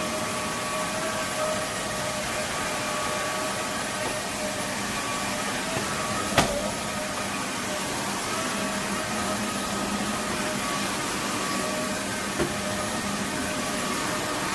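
Roborock F25 RT cordless wet-dry vacuum and mop running steadily in auto mode, a motor hum with a faint whine. There is a sharp click about six seconds in and a smaller one near the end.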